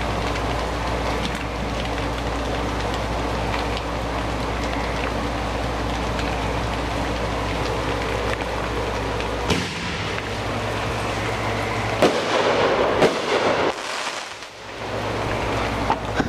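Steady rain hiss under consumer fireworks going off: a sharp bang about nine and a half seconds in, then a few bangs with a burst of crackling around twelve to thirteen seconds, and another bang near the end.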